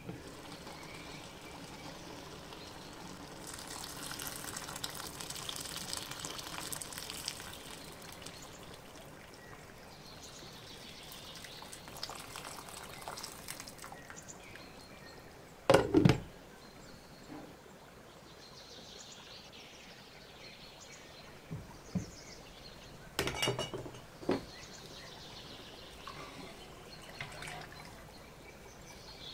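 Liquid being poured for several seconds, with one loud knock about halfway through and a short clatter of utensils or cookware later on.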